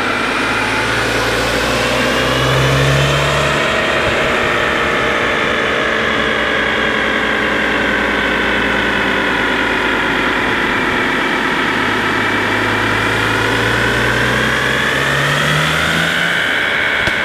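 BMW N54 twin-turbo inline-six running on a chassis dyno, exhaust through a catless downpipe, engine speed easing down through the middle and rising again near the end.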